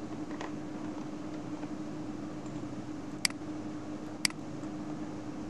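Two sharp mouse-button clicks about a second apart over a steady background hum.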